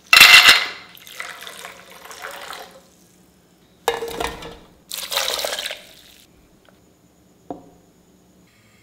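Cashews going into a steel bowl with a splash and pour of water, trailing off over a couple of seconds. Then tomatoes and soaked cashews tumble into a steel mixer jar in two short bursts, and there is a single sharp click near the end.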